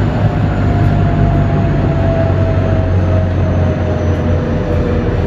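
Running sound of a JR West 207 series electric train's motor car, with its Mitsubishi power-transistor VVVF inverter and traction motors giving a thin whine that falls slowly in pitch as the train slows. Under it is a steady low rumble of the running gear.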